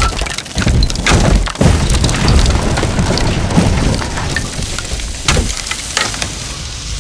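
Falling debris sound effect: a heavy crash, then rubble tumbling down in a dense clatter of cracks and knocks over a low rumble, with a few sharp hits later on as it thins out.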